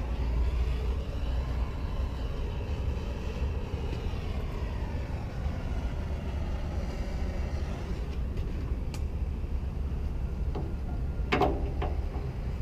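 Bobcat A300 skid steer's diesel engine running steadily, with sharp knocks near the end, the loudest about eleven seconds in.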